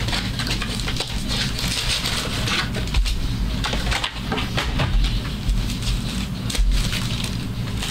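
Crinkling and rustling of trading-card packaging, foil pack wrappers and a card box, being handled and opened, with occasional dull handling thumps on the table.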